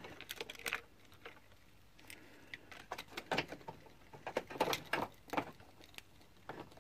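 Irregular light metallic clicks and taps from a car battery terminal clamp and its nut being fitted and tightened onto the battery post.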